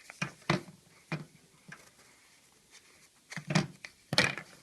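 Handling noises from unpacking a small parcel: an irregular string of sharp clicks and knocks, with the loudest ones close together near the end.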